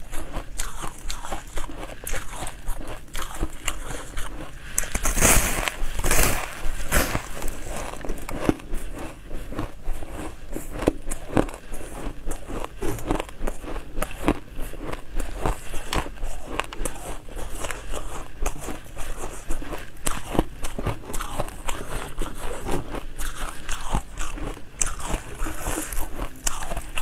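Close-up crunching and chewing: a crumbly white flaky slab being bitten, with a dense run of sharp crackling crunches, loudest about five to seven seconds in.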